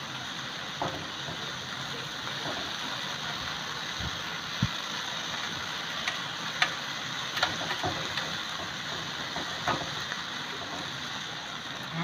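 Marinated pork barbecue skewers sizzling on a wire grill over charcoal as they are basted with their marinade. Short crackles and pops break in now and then.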